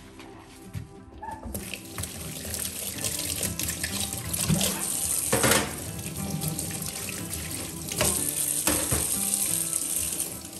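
Kitchen tap running into a stainless steel sink as a sponge and cloths are rinsed and squeezed out, water splashing on the steel. The water starts about a second and a half in, with a few louder splashes along the way.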